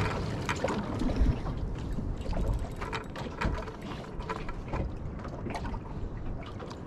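Spinning fishing reel being wound in, a run of small irregular clicks, while a hooked fish pulls on the bent rod. Under it, a steady low rumble of water against the small boat's hull and wind.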